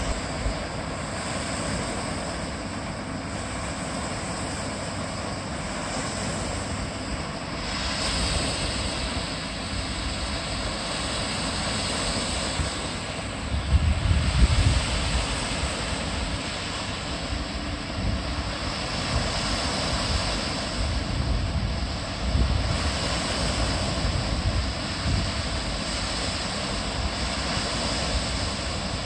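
Steady rushing of water pouring over a concrete weir spillway, with a few brief low rumbles about halfway through.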